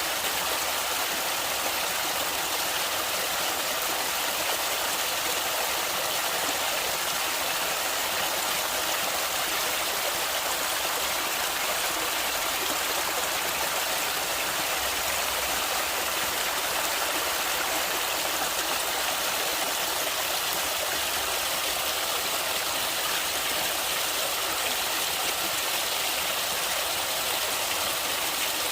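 Flowing stream water: a steady, even rush, bright and thin with little low end, unchanging throughout.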